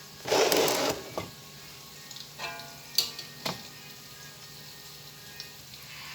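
A utensil scraping and clinking against a frying pan as fried jackfruit is lifted out of the hot oil: a short noisy scrape near the start, then a few sharp clinks.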